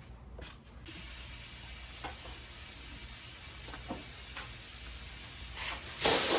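Compressed-air blow gun hissing as it blows dirt off parts. A steady, softer hiss starts about a second in, with a few faint knocks, and the blast opens up much louder near the end.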